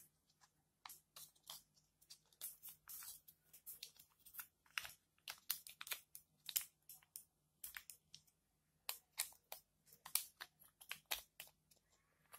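Parts of a Shimano Zee bicycle shifter handled during reassembly: irregular light clicks and small rattles of the plastic housing and metal ratchet plate being turned over and fitted.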